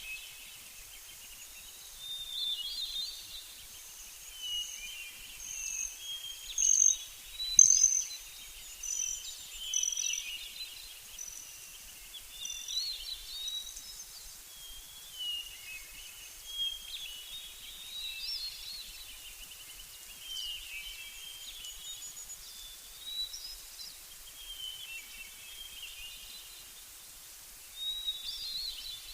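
Several songbirds singing and chirping, a continuous run of short high calls and trills, loudest about six to ten seconds in.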